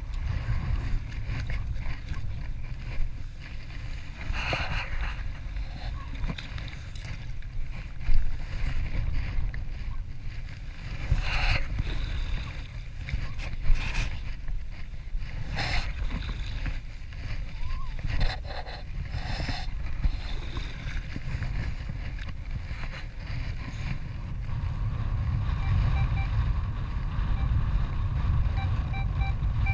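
Steady low rumble of wind on the microphone, with a few short scraping splashes as a spade digs into wet sand under shallow water. Near the end, a Minelab Equinox 600 metal detector gives a quick run of short, evenly repeated beeps over a target.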